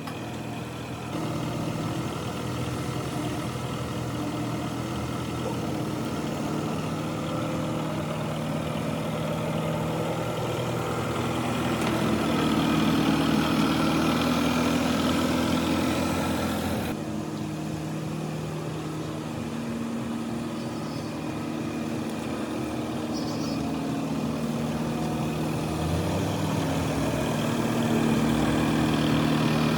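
A machine motor running steadily with a low hum, its sound changing abruptly about halfway through.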